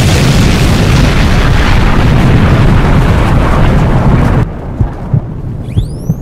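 Explosion sound effect: a long, loud blast that cuts off suddenly about four and a half seconds in. A quieter low rumble with scattered thumps follows, and near the end a high whistling tone rises in pitch.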